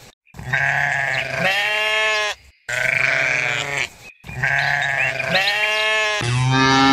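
A goat bleating: three long, drawn-out calls of about two seconds each, one after another. Near the end a deeper, louder cow moo begins.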